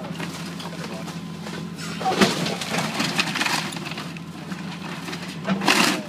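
John Deere excavator's diesel engine running steadily while its bucket tears into a wood-frame building. Wood cracks and debris crashes about two seconds in, and again, loudest, near the end.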